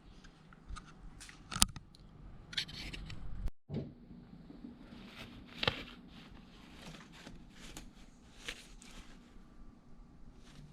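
Scattered clicks and light scraping from hand work with tools and engine parts, over a faint steady hum. The sharpest clicks come about one and a half seconds in and about halfway through.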